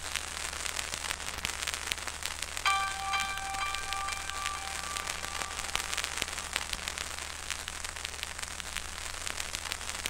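Dense crackling static over a steady low hum. About three seconds in, a held tone with several pitches joins it and fades out a few seconds later.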